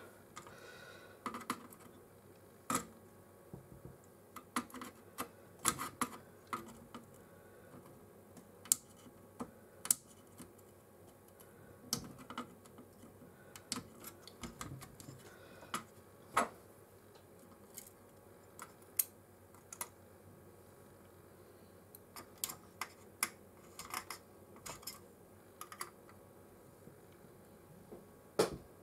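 Irregular small clicks and taps of hand tools against a circuit board while surface-mount capacitors are being desoldered, some coming in quick little clusters.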